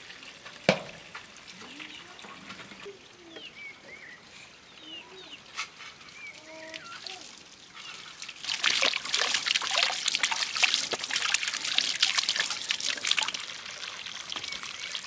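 Water running from an outdoor tap and splashing into a vessel for about five seconds, starting about eight seconds in. Before it, a single sharp knock under a second in and faint chirps.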